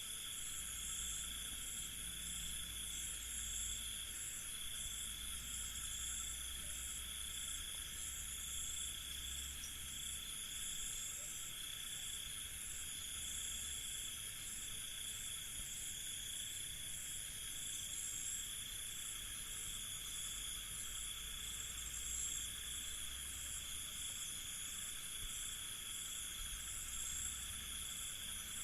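Night chorus of crickets: several steady, high-pitched trills at different pitches, the highest ones pulsing rapidly and evenly.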